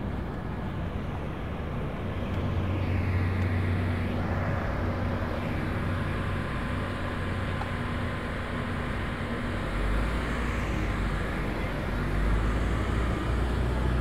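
Vehicles driving slowly along the road beside the walkway, a low engine hum building about two seconds in and a deeper one taking over from about ten seconds, over steady outdoor background noise.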